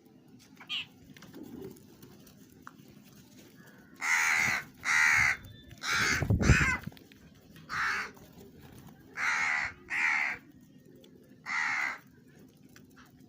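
Crow cawing: seven harsh caws of about half a second each, the first three close together and the rest spaced out, with a low thump under the third call.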